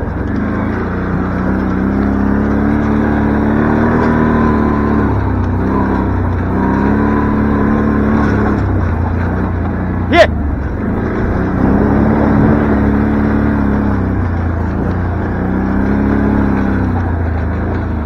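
A farm bike's engine revving up and easing off several times as it drives across a field, over a steady low rumble. A single sharp knock about ten seconds in is the loudest moment.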